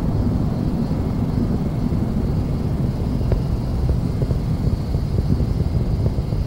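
Space Shuttle Discovery's rocket exhaust, with the twin solid rocket boosters and three main engines firing during ascent: a steady low rumble with scattered crackles.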